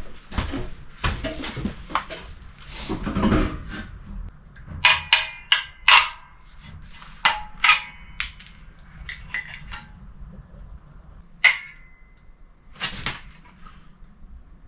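Clattering and knocking of sink drain fittings and tools being handled and fitted: rustling at first, then a quick run of sharp clinks and knocks, a few with a short ring, and two more single knocks later on.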